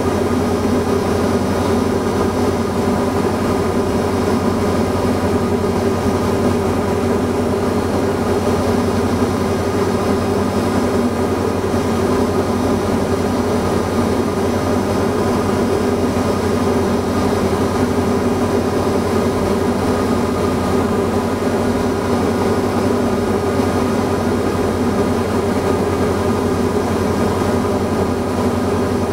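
Diamond DA40NG's Austro AE300 turbo-diesel engine and propeller droning steadily in flight, heard from inside the cockpit.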